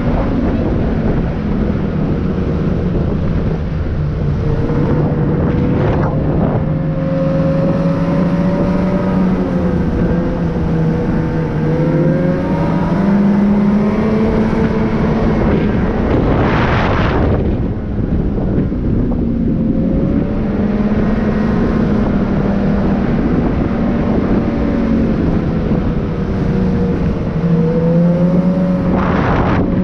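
Motor vehicle engine running with a steady drone whose pitch slowly rises and falls, and three brief whooshes: about six seconds in, in the middle, and near the end.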